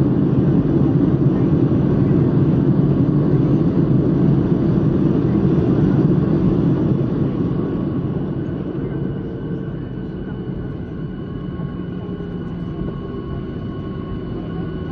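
Boeing 737-800's CFM56-7B jet engine heard from inside the cabin during the landing rollout: a loud roar, typical of reverse thrust, eases off about seven to ten seconds in as the engine spools back toward idle, leaving a quieter rumble with a steady high whine.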